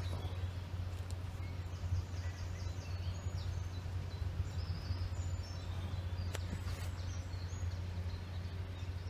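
Outdoor riverside ambience: a steady low hum throughout, with small birds chirping in short high notes, several in quick series in the first few seconds and a few more later. There are a couple of sharp clicks a little past the middle.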